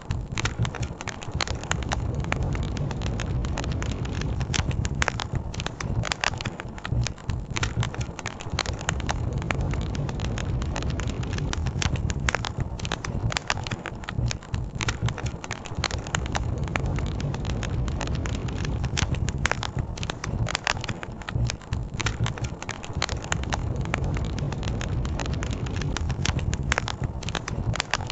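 Wood campfire crackling steadily, with many sharp pops and snaps, over a low, even rush of flowing river water.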